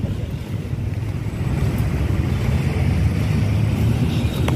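Wind buffeting a phone's microphone: a loud, gusty low rumble with no engine tone.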